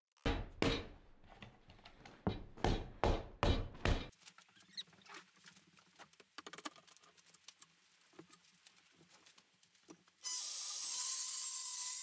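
Hands brushing sawdust off a sawn timber beam: about seven quick swishes in the first four seconds, then light knocks and taps of wood and tools being handled. Near the end a steady, louder hissing noise cuts in suddenly.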